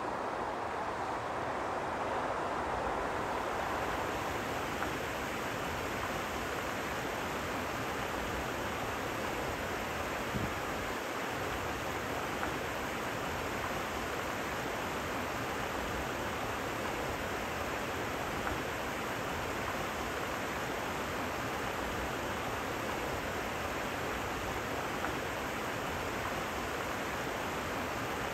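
Shallow rocky river flowing over stones: a steady, even rush of running water.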